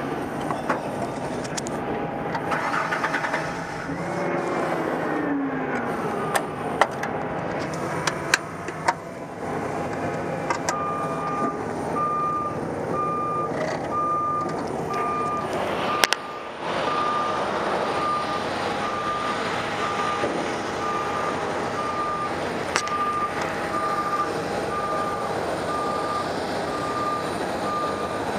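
Airport belt loader's engine running while it is driven, with its back-up alarm beeping steadily a little more than once a second from about a third of the way in. A whine falls in pitch about four seconds in, and a few sharp clicks and a knock come partway through.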